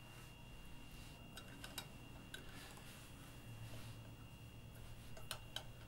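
Faint scattered clicks and light metallic ticks of an Allen key being fitted into and turning a set screw on the CNC's aluminium roller carriage, over a faint steady background hum.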